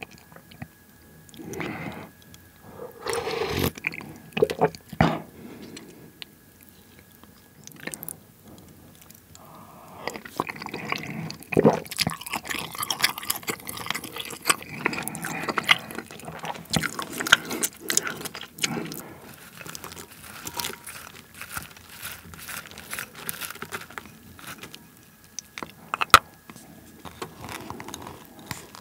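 Close-miked eating sounds: sipping pork gukbap (Korean pork and rice soup) broth from a wooden spoon, chewing, and the scrape and clink of the spoon against the ceramic bowls, with one sharp clack about 26 seconds in. Near the end, rice is scraped from its bowl into the soup.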